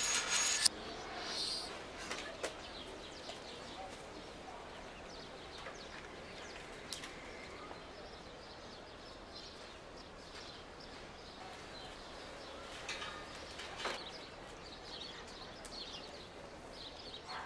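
Outdoor ambience: a steady low hiss with faint bird chirps, a short loud burst of noise right at the start, and a few sharp knocks, one about two and a half seconds in and one near fourteen seconds.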